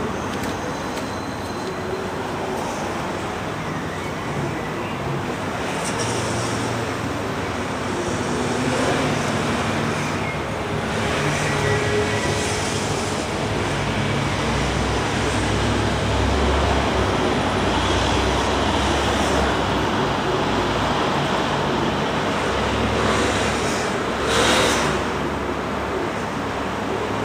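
Road traffic: a steady rumble of passing cars and engines that swells and eases, with a brief louder rush of a passing vehicle near the end.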